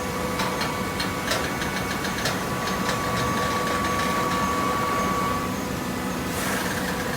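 Vertical downstroke hydraulic baler running: the motor-driven pump hums steadily, with some cracks and clicks in the first couple of seconds. Its whine grows louder as the press works and stops about five and a half seconds in, followed by a short hiss.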